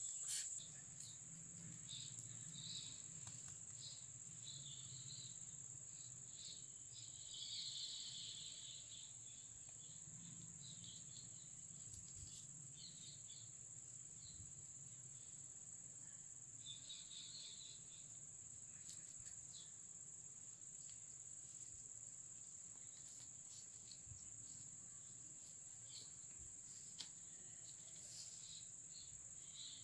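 A cricket chirring faint and steady, high-pitched, with a few faint scattered clicks and rustles.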